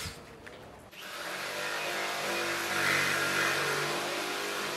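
An engine running steadily. It comes up out of a quiet stretch about a second in.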